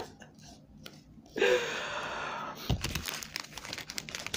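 Clear plastic packaging crinkling and rustling as a hand rummages through it, with a dull thump about two and a half seconds in. Just before, a short breathy sigh.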